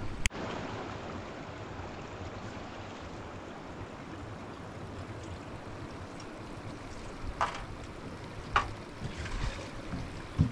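Steady outdoor rushing noise, with two light clinks of metal dishes being handled about seven and a half and eight and a half seconds in.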